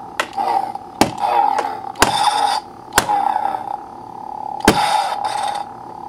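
A Hasbro 2010 economy toy lightsaber's sound board plays its steady electronic hum through a small speaker. Several sharp clash effects about a second apart break the hum, and some are followed by short hissing swing sounds as the motion-sensing hilt is moved.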